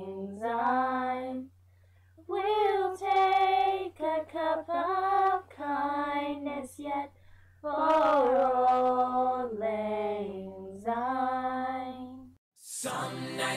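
Girls singing a song together without accompaniment, in phrases broken by short pauses, over a steady low hum. Near the end the singing cuts off and a recorded song with fuller backing starts.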